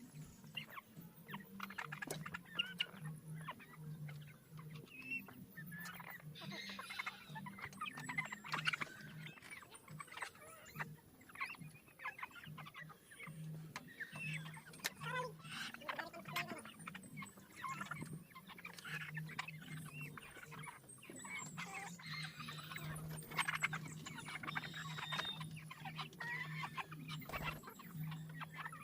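Chickens clucking and calling in short, overlapping calls, with scattered clicks and knocks and a steady low hum underneath.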